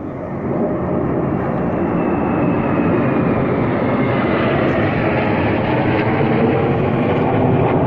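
Jet aircraft flying over in formation: a loud jet roar that swells over the first second or two and then holds, with a high whine that slowly falls in pitch as they pass.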